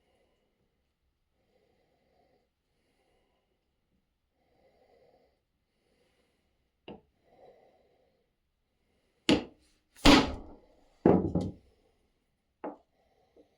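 Faint handling and rustling, then a run of sharp knocks and thuds on wood: one light knock, then three heavy ones in quick succession about nine to eleven seconds in, and a lighter one after.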